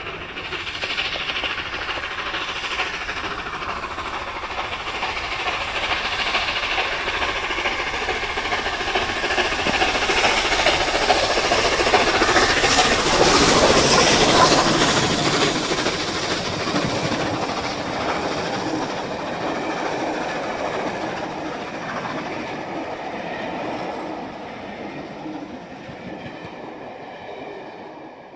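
LNER A3 Pacific steam locomotive 60103 Flying Scotsman, a three-cylinder 4-6-2, hauling its train of coaches past at speed. The sound builds to its loudest about halfway through as the engine goes by. After that the coaches' wheels clatter over the rail joints and fade away.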